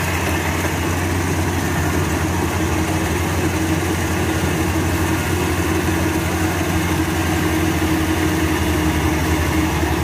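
Rice combine harvester's engine running steadily as it harvests, a constant loud drone with a low hum.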